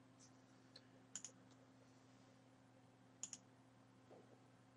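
A few faint, short clicks from a computer's keyboard and mouse, single and in close pairs, as a web login is submitted, over a faint steady low hum.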